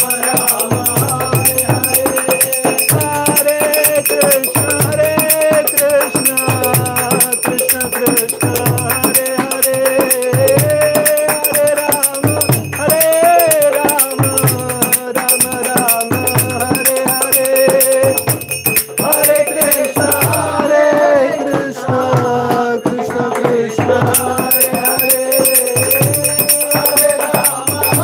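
Devotional kirtan: one voice singing a chant over a steady low drum beat, with continuous high metallic ringing and rattling of hand cymbals or a bell. The metallic ringing drops out for a few seconds past the middle, then returns.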